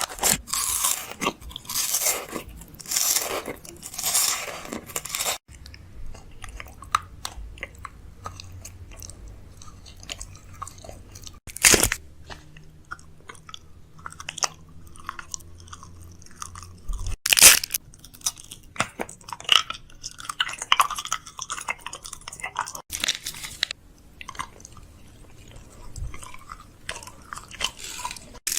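Close, irregular crunching and chewing, with a few sharper, louder crunches along the way.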